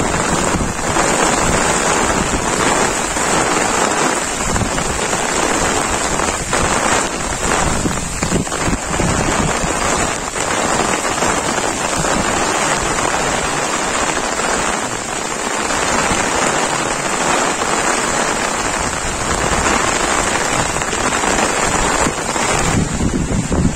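Heavy monsoon rain pouring down steadily: a dense, even hiss of rain on flooded rice paddies, with an uneven low rumble of wind on the microphone.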